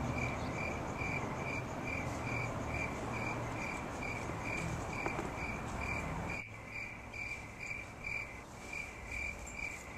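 Crickets chirping in a steady, even rhythm, about three chirps a second, over faint outdoor background noise that thins about six and a half seconds in.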